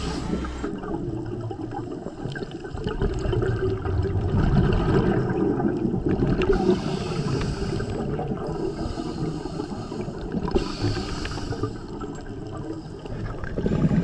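Underwater bubbling and gurgling from a scuba diver breathing through a regulator, with two hissing inhalations about seven and eleven seconds in.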